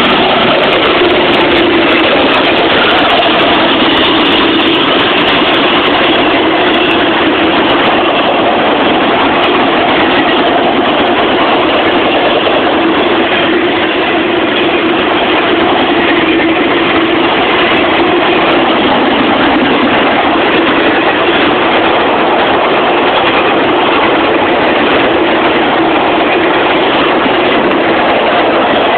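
Intermodal freight train rolling past close by: a steady, loud roar of wheels on the rails with a faint steady hum underneath.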